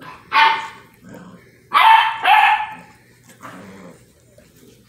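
8-week-old basset hound puppies barking in play: one short high bark, then two louder barks close together about a second and a half later, followed by fainter noises.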